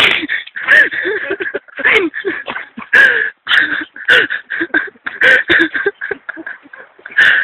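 Loud, choppy human vocal sounds, unintelligible, starting and breaking off every fraction of a second.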